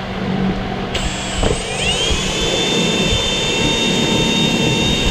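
Power drill starting up about a second in, its motor whine gliding up in pitch and then running at a steady high whine while drilling a hole with a larger bit.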